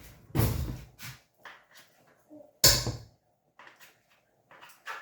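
Kitchen handling sounds: a thump just under half a second in and a sharp knock about two and a half seconds in, with lighter clicks and bumps between them.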